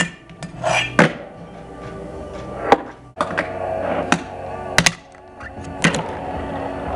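Music playing throughout, with about seven sharp wooden clacks at irregular spacing as a fingerboard pops and lands on a wooden table and obstacle, two of them in quick succession just before the five-second mark.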